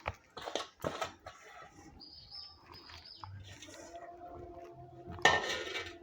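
Kitchen handling sounds as fish and radish are arranged on banana leaves in a griddle: a few quick knocks and clicks near the start, then a louder rustling clatter about five seconds in. Birds chirp faintly in the background.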